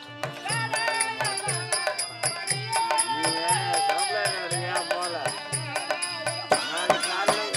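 Live Therukoothu folk-theatre band playing: a two-headed barrel drum beats a steady rhythm about twice a second under bright metallic jingles, with a wavering melody line above.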